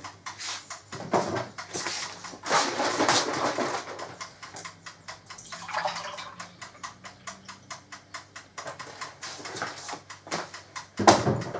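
Kitchen handling noises: scattered light clicks and knocks of dishes and utensils, with a few short rustling stretches.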